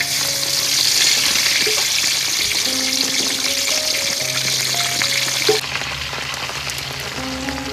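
Pork lung and intestines deep-frying in a wok of hot oil: a loud sizzle as the raw offal goes in, dropping to a quieter sizzle about five and a half seconds in, just after a single sharp clack. Background music plays underneath.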